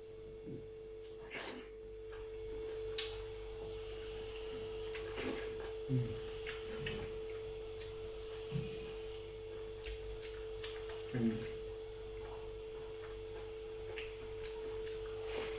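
Quiet eating sounds during a mukbang meal: scattered clicks and short mouth smacks of chewing, about a dozen over the stretch, over a steady faint humming tone.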